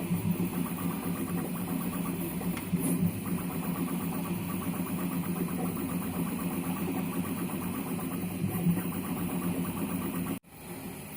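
Prusa MK3S+ 3D printer printing: its stepper motors whir and buzz steadily as the print head and bed move. The sound cuts out sharply for a moment about ten seconds in.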